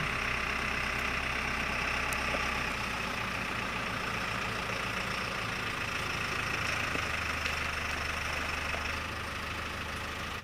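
Telehandler's diesel engine running steadily while it holds the boat slung from its boom.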